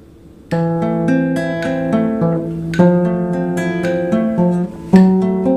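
Background music of acoustic guitar strumming chords. It starts about half a second in.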